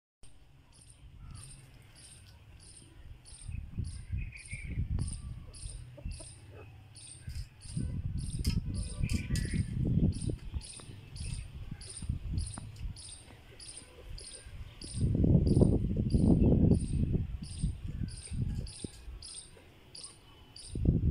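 Crickets chirping steadily, about two or three short high chirps a second. Under them come several few-second bursts of low scuffling and rustling from hens dust bathing in dry dirt, the loudest about three-quarters of the way through.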